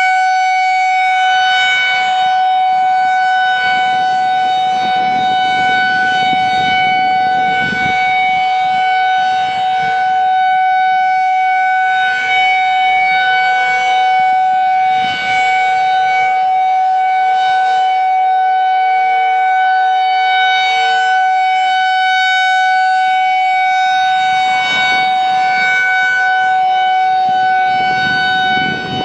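Federal Signal 2001-SRNB outdoor warning siren, a single-tone rotating electromechanical siren, sounding a loud steady tone. It holds one pitch throughout, with a stack of overtones above it.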